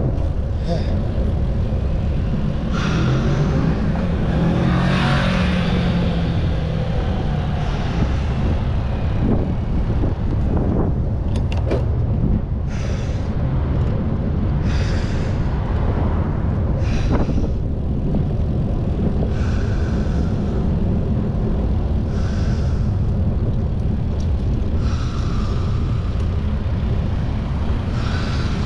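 City street traffic heard from a moving bicycle, under a steady low rumble of wind on the microphone. A vehicle's engine hum passes about three to seven seconds in, and short hisses come and go through the second half.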